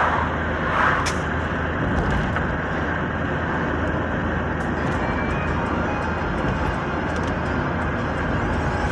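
Steady road and engine noise of a moving vehicle heard from inside its cabin, with a brief knock about a second in and a few faint ticks.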